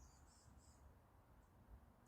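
Near silence, with a few faint high-pitched chirps from a small animal in the first second.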